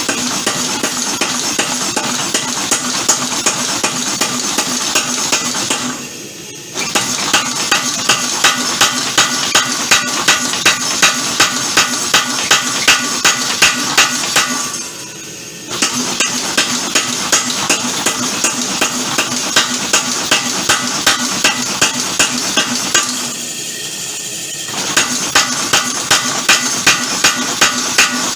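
Homemade mechanical power hammer striking steel in rapid, even blows with a metallic ring, in long runs broken three times by pauses of about a second; a steady running noise carries on through the pauses.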